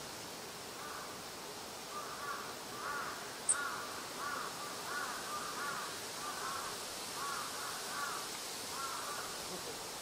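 Crows cawing in a series of harsh, repeated calls, about two a second, from about a second in until near the end. A single short, sharp high tick about three and a half seconds in, over a steady background hiss.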